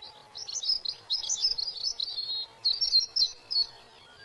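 A songbird singing: quick, high twittering phrases of varied notes, in two runs with a short pause about two and a half seconds in.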